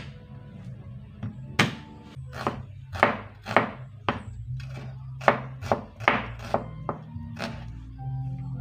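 Chef's knife chopping a small red onion on a plastic cutting board: a run of sharp knocks, about two a second, starting a little over a second in and stopping near the end, with faint background music underneath.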